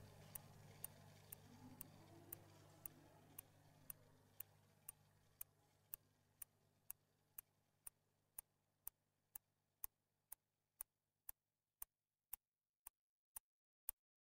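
Steady ticking, about two sharp ticks a second, like a clock. Under it a low hum and faint hiss fade away and stop about eleven seconds in, leaving only the ticks.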